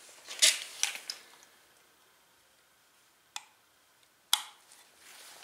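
Sharp plastic clicks and rustling as a knock-sensor wiring harness is handled and its connectors are plugged in on an LS engine block: a quick cluster of clicks in the first second, then two single clicks about three and four seconds in.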